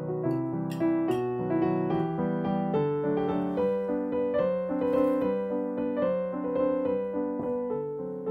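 Piano music, a steady run of notes over held chords.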